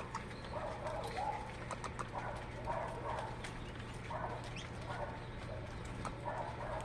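Birds calling in short, repeated calls about once a second, with scattered sharp clicks over a steady low hum.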